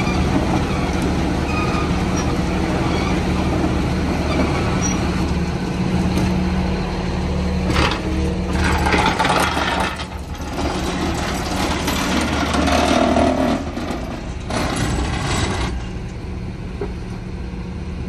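Mercedes-Benz MBE900 diesel engine of a Sterling LT8500 truck idling steadily, with several bursts of hiss through the middle.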